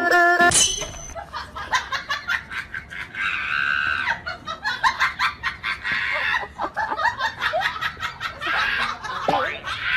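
People laughing hard, in quick repeated bursts.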